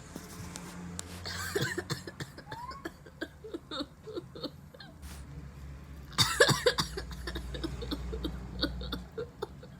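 A young woman sneezing, set off by a nasal swab, in several short fits; the loudest, sharpest sneeze comes about six seconds in.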